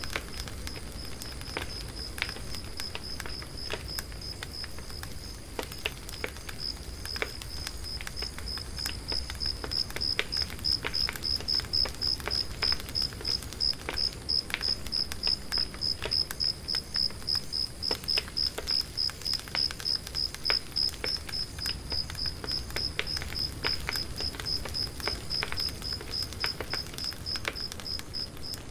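Cricket chirping in a steady, even rhythm of high-pitched pulses, growing louder about a third of the way in. Under it a wood fire crackles with irregular sharp pops.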